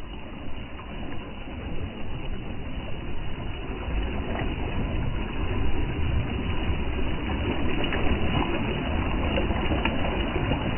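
Small sea waves breaking and washing over sand, heard close up at the waterline: a steady rush with a strong low rumble.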